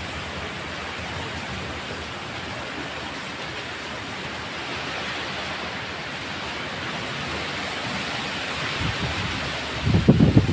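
Steady hiss of typhoon rain and strong wind through tree foliage. Near the end, low rumbling gusts buffet the microphone.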